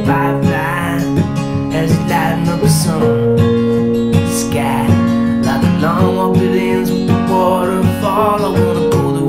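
Instrumental break in a slow acoustic pop love song: steady acoustic guitar strumming under held electric keyboard chords, with a wavering melody line coming in and out above them.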